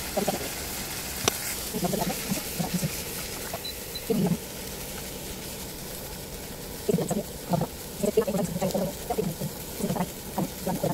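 Indistinct voices talking in the background in short bursts, over a faint steady hiss of onions and bottle gourd frying in oil in a pan.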